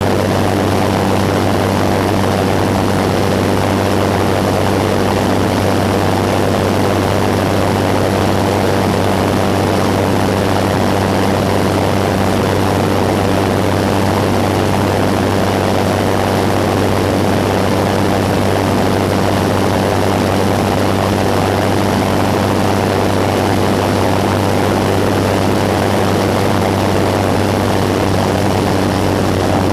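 Pitts aerobatic biplane's piston engine and propeller running steadily at high power, a loud, even drone with no let-up.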